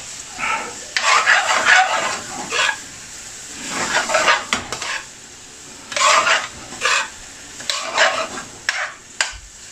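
Metal spoon stirring and scraping chicken pieces around an aluminium frying pan, in repeated strokes, with a low sizzle from the pan underneath.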